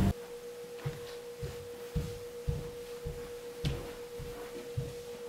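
Background music cue: one steady held tone over soft, evenly spaced low beats, a little under two a second.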